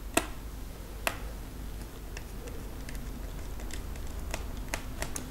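Small sharp clicks and ticks of plastic laptop display parts being handled by hand: two louder clicks in the first second, then a scatter of lighter ticks.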